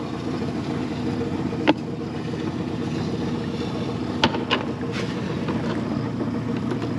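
Boat's outboard motor idling steadily, with a few short sharp knocks about two and four seconds in.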